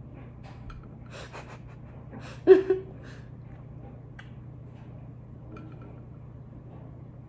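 Short sips through a drinking straw and a brief vocal sound about two and a half seconds in, over a steady low hum from a washing machine running in the background.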